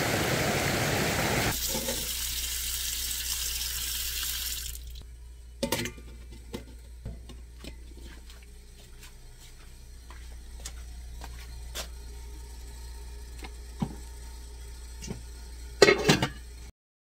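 River water rushing, then water running and pouring into a stainless steel pot for a few seconds, followed by the light clinks of steel cookware being handled and a loud clatter near the end as the metal lid is set on an electric steam cooker.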